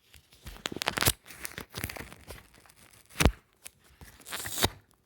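Paper being handled: irregular crinkling and rustling, with a sharp knock about three seconds in and a longer rustle near the end.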